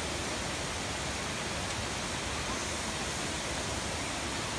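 Steady, even rushing noise at a constant level, spread across low and high pitches alike, with no distinct events.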